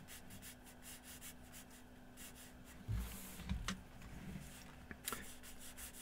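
Faint handling of a spiral-bound watercolor paper pad on a cutting mat: soft rubbing and scratching of paper as the pad is turned, with two low bumps a little after three seconds in and a brief click near the end.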